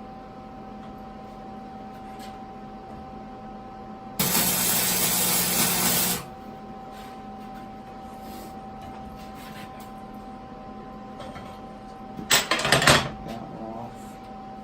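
A steady machine hum throughout. About four seconds in, a loud even hiss lasts about two seconds, and near the end comes a short, rough, uneven burst of noise.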